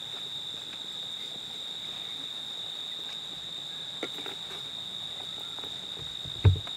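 Steady, high-pitched chirring of insects such as crickets, with a few light scrapes of a steel ladle stirring sugar-coated dough pieces in an iron kadhai. Near the end there is one short, dull thump.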